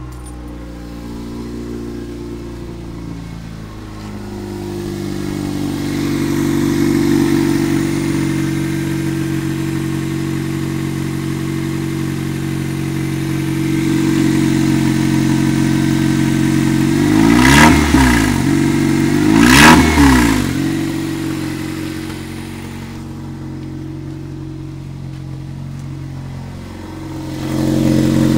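1998 Toyota Corolla engine running just after a start with a noise the owner calls really bad, a noise that came on under load climbing a hill and now persists even off the throttle. It is revved briefly twice, about a second and a half apart, past the middle, then drops back to a steady run.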